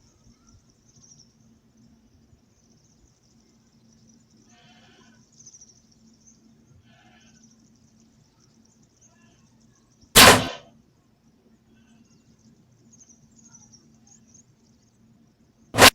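Two loud, sharp hunting shots about five and a half seconds apart, the first trailing off briefly. Insects buzz faintly in the background.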